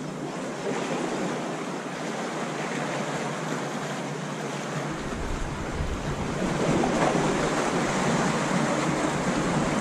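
Sea waves washing against rocks at the shoreline, a steady surf that swells louder a little past halfway.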